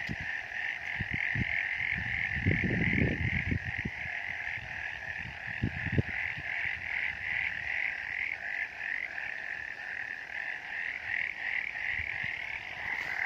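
Chorus of many frogs calling together, a dense high-pitched pulsing that runs on without break. A few low thuds and rumbles break in, mostly about two to four seconds in and again near six seconds.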